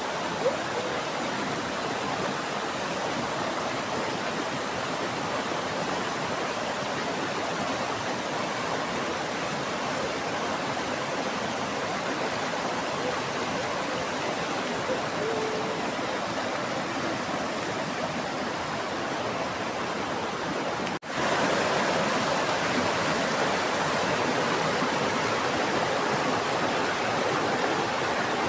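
Steady rushing of a mountain river's water over rocks. It briefly cuts out about two-thirds of the way through, then comes back a little louder.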